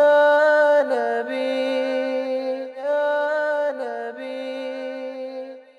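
Closing music of a Punjabi naat: wordless layered voices with no instruments, holding long notes that step to a new pitch a few times, then fading out near the end.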